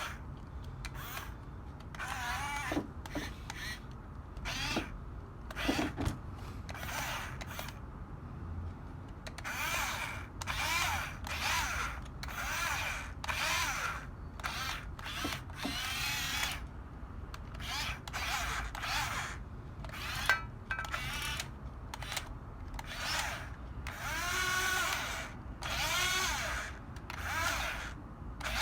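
Small electric gear motors of a toy RC bulldozer whining in repeated short bursts. The pitch rises as each motor spins up and falls as it stops.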